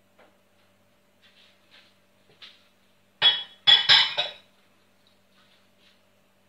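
A silicone spatula faintly scraping melted butter out of a container, then a loud clatter of dishware, two hits in quick succession about three seconds in, as the container goes into the stainless-steel kitchen sink.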